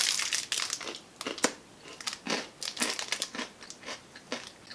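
Shiny candy-bar wrappers crinkling in the hand, densest in the first second, then scattered sharp crackles and crunches as honeycomb chocolate bars are handled and bitten.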